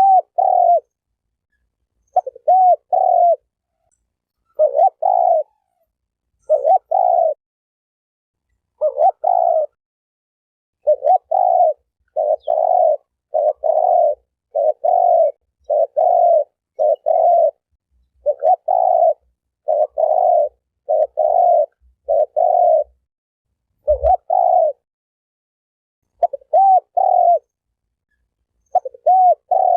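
A male spotted dove cooing in repeated low phrases of two or three notes, one phrase every second or two, with dead silence between phrases. A single low thump is heard about 24 seconds in.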